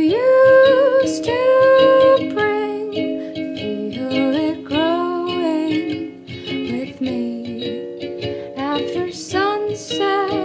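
Strummed 3D-printed Nuke ukulele with a woman's voice singing long, sliding notes over it.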